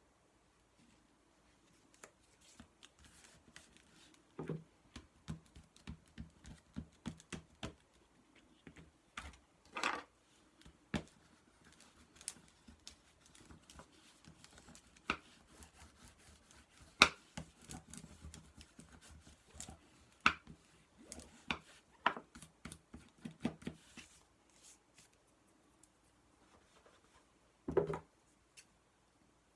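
Paper being cut and handled at a craft desk: an irregular string of small snips, clicks and taps, with a louder knock near the end.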